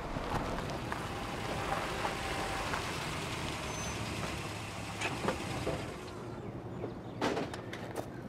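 Vehicle running on the road, a steady rushing noise that thins out about six seconds in, followed by a few short knocks.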